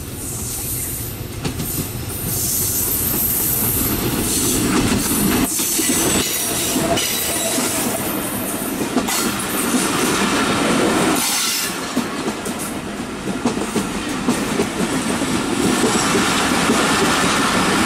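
Diesel-hauled broad-gauge passenger train passing close by. It grows louder as the locomotive approaches, then the coaches roll past with a steady rumble, wheel clatter over the rail joints, and thin high wheel squeals on the curve.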